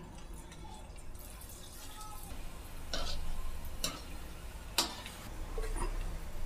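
Cabbage Manchurian dough balls deep-frying in oil in a wok at medium heat, a soft steady sizzle, with three sharp clicks near the middle as more balls go in.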